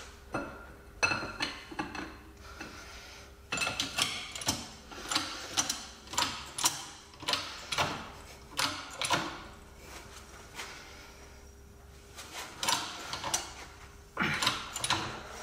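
Metal clicks and clanks from hand tools working a press-and-pull cup kit on a suspension bushing. They come in irregular clusters with short pauses.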